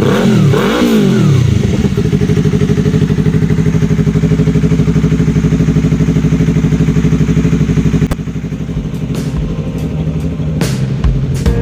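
Yamaha MT-03's 321 cc parallel-twin running through a Yoshimura AT2 exhaust: a quick rev blip rising and falling in the first two seconds, then a steady idle with an even, fast exhaust pulse. About eight seconds in the sound drops in level and a few sharp knocks follow.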